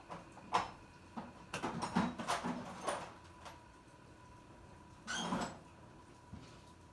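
Scattered metal clinks and knocks, with a short scrape about five seconds in, from a lawnmower blade and screwdriver being handled during a balance check.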